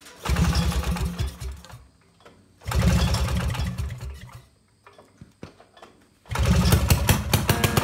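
Two-stroke snowmobile engine being started: it fires and runs for about a second and a half, then dies; it fires again and dies, then catches on the third try about six seconds in and keeps running.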